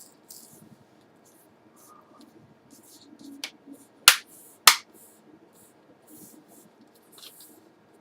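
Plastic screen-bezel clips of an MSI GE72 laptop snapping into place as fingers press the bezel back on: two sharp clicks about half a second apart near the middle, a lighter one just before, and soft handling noise in between.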